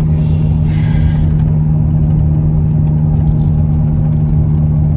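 Steady low rumble and hum of a car, heard from inside the cabin, with a brief hiss in the first second or so.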